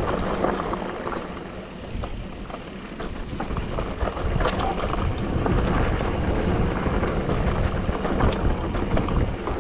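Mountain bike rolling down a dry dirt trail: wind buffeting the microphone over a low tyre rumble, with scattered rattles and clicks from the bike over bumps.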